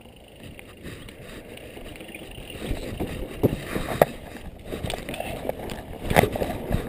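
Mountain bike rolling fast down a dirt trail: steady tyre and rattle noise that grows louder, broken by sharp knocks over bumps about three and a half, four and six seconds in.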